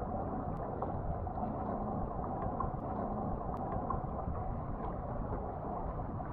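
Steady, muffled rush of wind and water around a Hobie Tandem Island sailing kayak under way, with a few faint ticks.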